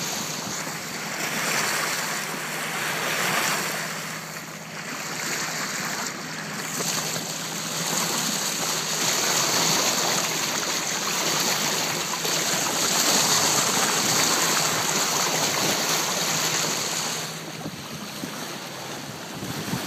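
Bow wave of a moving boat rushing and splashing along the hull, the source of all the noise. It surges louder and softer and eases off a little near the end.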